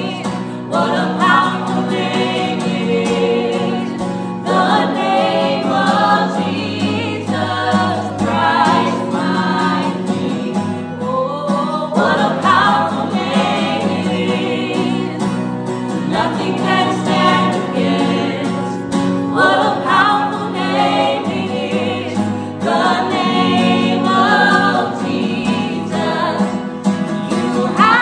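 A small worship team singing a slow contemporary worship song together, with an acoustic guitar strummed underneath.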